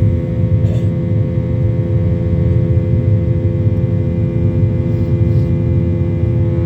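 Boeing 737-800's CFM56-7B jet engines running at takeoff thrust during the initial climb, heard from inside the cabin: a loud, steady rumble with a constant whine.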